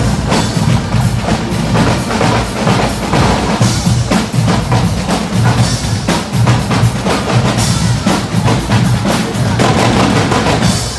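Guggenmusik drum section playing a loud, driving rhythm on bass drums and snare drums, the strikes coming thick and fast.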